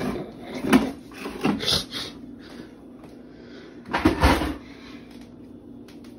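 A few sharp knocks and clunks of things being handled on a kitchen countertop in the first two seconds, then a louder clunk with rustling about four seconds in.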